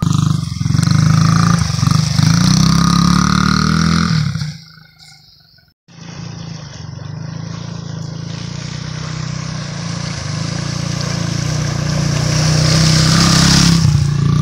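Honda CRF50 dirt bike's small single-cylinder four-stroke engine revving up and down as it rides. It fades out, drops to a brief silence a little before the middle, then returns running steadily and growing louder as the bike comes closer through flood water.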